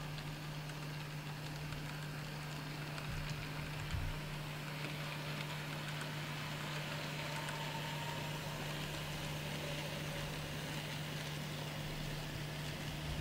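N scale model freight train running slowly past: a steady low electric hum over a faint hiss of small wheels on the track, with a soft bump about four seconds in.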